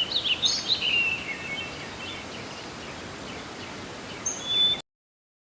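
Small birds chirping over a steady outdoor hiss: a quick cluster of short, sweeping calls in the first second and a half, scattered notes after, a few more near the end, then the sound cuts off suddenly.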